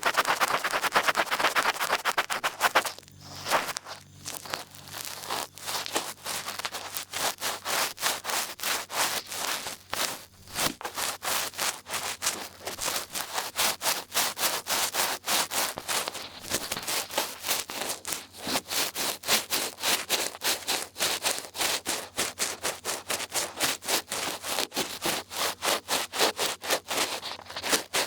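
Large ear pick scraping and rubbing in quick repeated strokes, about three a second, after a continuous rub in the first couple of seconds.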